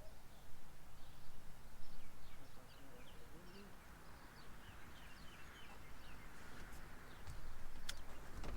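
Small birds chirping: many short, quick high notes repeated throughout, over a steady low outdoor rumble.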